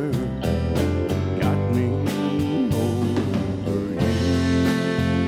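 Live country band playing an instrumental passage: steadily strummed acoustic guitars with pedal steel guitar and bass, no vocals.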